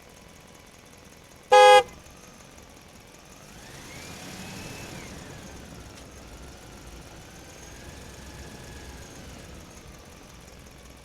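A short, loud vehicle horn toot, followed by a fainter vehicle engine running for several seconds, its pitch rising and then falling back.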